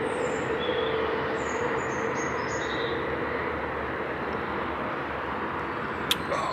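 Steady distant rumble of traffic, with a humming tone that fades away over the first few seconds. A few short bird chirps sound in the first half, and a sharp click comes near the end.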